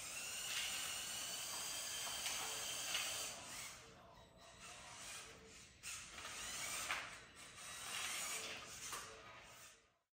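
Motorized LEGO Technic F1 car driving on a wooden floor: the high whine of its electric drive motors and plastic gearing comes and goes in two spells. Over it is a rattling, scraping noise from the low-slung chassis rubbing on the floor. The sound cuts off suddenly near the end.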